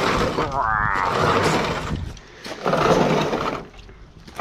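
Heavy metal scrap being shoved and scraped across a pickup bed: rough grating noise in two stretches, the second one shorter and ending suddenly.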